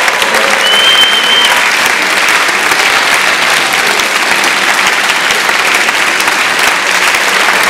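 Audience applauding steadily, with a short high whistle-like tone about a second in.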